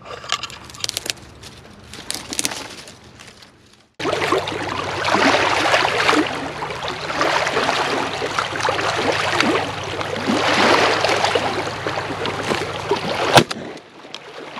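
A few faint clicks, then a steady rushing noise from about four seconds in, ended near the end by one sharp, loud shotgun shot at a flying duck.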